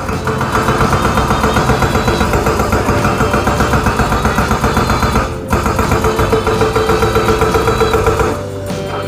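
Hydraulic rock breaker on a Kobelco excavator hammering into rock, a fast steady pounding of several blows a second over the excavator's running engine. It breaks off briefly a little past halfway and stops near the end.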